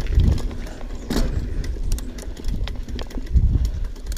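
Downhill mountain bike riding down a dirt trail, heard from a helmet-mounted camera: a steady low rumble of wind and tyres with frequent sharp clicks and rattles from the bike.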